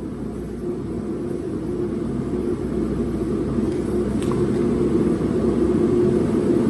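Steady low mechanical rumble with a faint steady hum in it, growing gradually louder.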